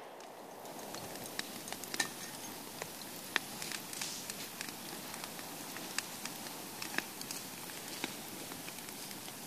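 Brush-pile fire crackling steadily, with scattered sharp pops and snaps of burning twigs.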